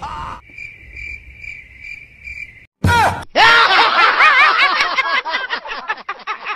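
A cartoon cricket-chirp sound effect repeats steadily for about two seconds. After a brief gap, a man's very loud scream with a wavering pitch starts about three seconds in and lasts about four seconds.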